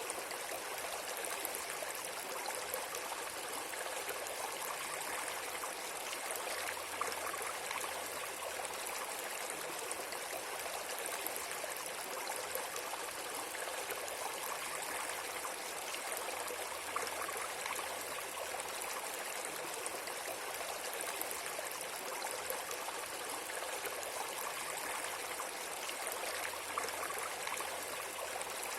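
Steady, even rush of flowing water, like a stream, that runs on unchanged.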